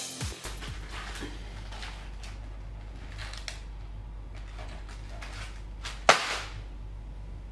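A cardboard box of Ritz crackers dropped onto a tiled floor, landing with one sharp slap about six seconds in. Before that, a few faint clicks and rustles as the box is handled, over a low steady room hum.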